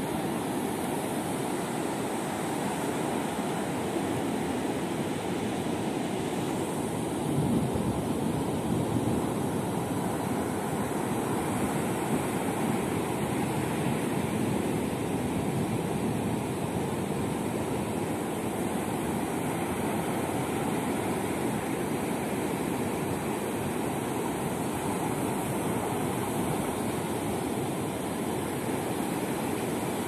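Ocean surf breaking on a sandy shore: a steady rushing wash of waves, swelling a little about seven seconds in.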